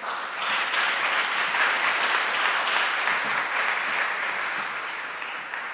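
Audience applauding, the clapping fading toward the end.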